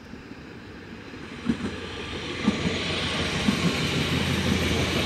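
A DB class 442 Talent 2 electric multiple unit approaches and runs past, growing steadily louder. Its wheels thump on the rails about once a second.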